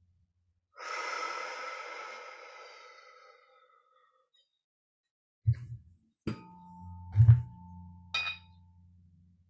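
A struck metal chime rings out about a second in and fades away over a few seconds. Later come a few sharp low knocks, as of a tool being struck or handled, and a single steady ringing tone that lasts about two seconds, typical of a struck tuning fork.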